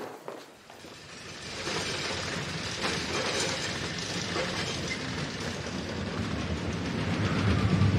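A theme-park ride rolling along its rails. It fades in about a second in as a steady rushing rumble and grows louder near the end.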